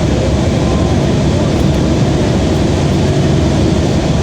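Passenger hovercraft running: a steady, loud drone of its engines and fans, with a low hum under a broad rushing noise.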